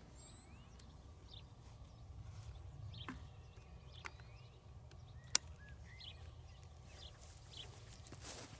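Birds chirping now and then over a low steady rumble. A few sharp clicks come through, the loudest about five seconds in, and there is a rustle near the end.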